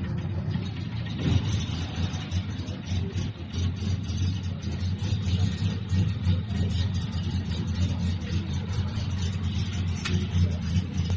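Diesel engine running steadily, a rough, even low hum.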